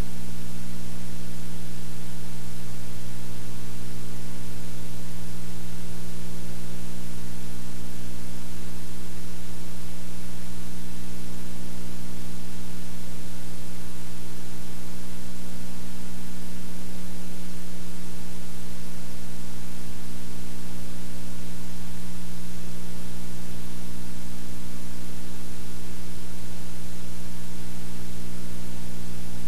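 Steady hiss with a low electrical hum under it, unchanging throughout: noise of a blank stretch of tape or transfer with no recorded sound on it.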